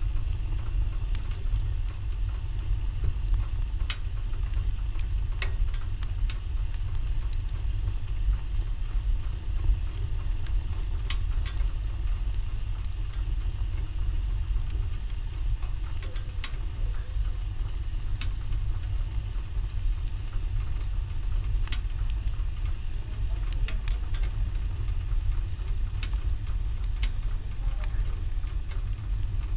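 Wood fire in a fireplace crackling, with sharp pops every second or two over a steady low rumble.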